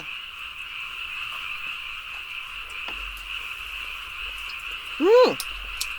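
A steady chorus of frogs calling, with a person's short voiced sound rising and falling about five seconds in.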